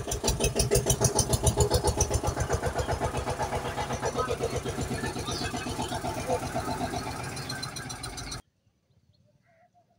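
Tractor engine chugging in fast, even beats, laid over the toy tractor as its engine sound. It gets slightly quieter and cuts off abruptly a little past eight seconds in, leaving only faint chirps.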